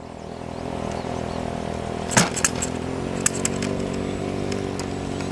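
Model airplane engine being started with a handheld electric starter pressed to the spinner, running steadily, with a few sharp clicks about two and three seconds in.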